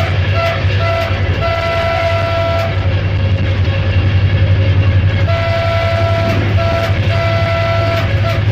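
Henschel diesel locomotive at speed, heard from inside the driver's cab: a steady low drone from the running train, with the horn sounding over it in a string of short and long blasts. The blasts stop for about two seconds in the middle, then come again.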